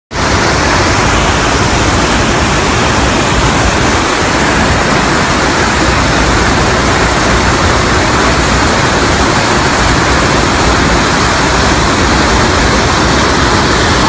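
Waterfall pouring through a narrow rock gorge: a loud, steady rush of white water that cuts in suddenly at the start.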